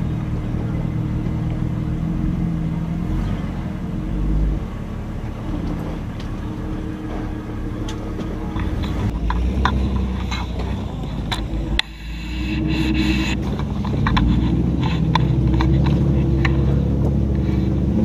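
Jeep engine running at low revs while crawling over rock, with a run of sharp clicks and knocks from the tyres and chassis on stone partway through.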